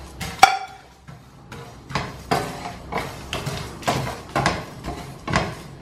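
Wooden spatula stirring whole spices dry-roasting in a nonstick frying pan: repeated short scraping strokes against the pan, about two to three a second, with a sharp knock about half a second in.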